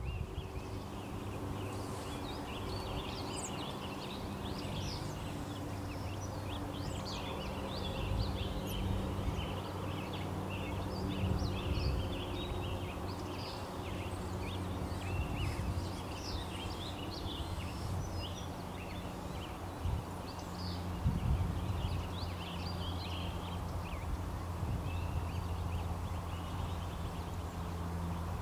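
Many birds chirping and twittering in a busy chorus, over a steady low hum with a few low rumbles a little past the middle.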